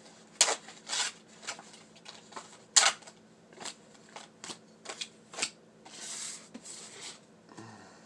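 Paper scratch-off lottery tickets being handled and picked up: irregular crackles and rustles as the cards are flipped, with a soft sliding swish about six seconds in.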